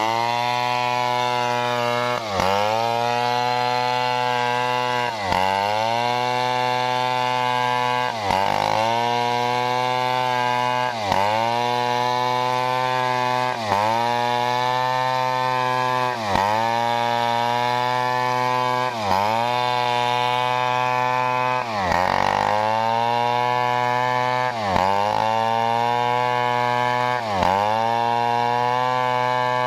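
Stihl chainsaw at full throttle, ripping lengthwise through a large coconut palm trunk. About every three seconds the engine note dips sharply, then recovers.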